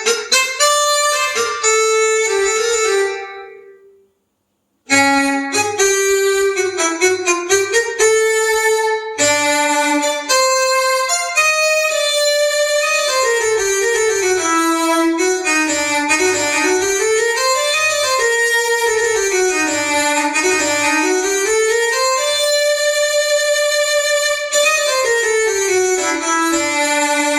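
Yamaha electronic keyboard playing a melody in a sustained, reedy lead voice. Quick runs of notes break off into a short silence about four seconds in. Then come more runs, a long stretch where the pitch glides slowly up and down, and held notes near the end.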